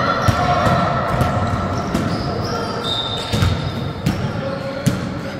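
Basketball bouncing on an indoor court several times at an uneven pace, with short high sneaker squeaks on the floor, in a hall that echoes.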